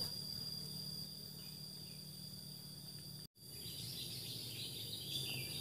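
Outdoor forest ambience: a steady high-pitched insect drone over a low hum, with birds twittering after a brief dropout about three seconds in.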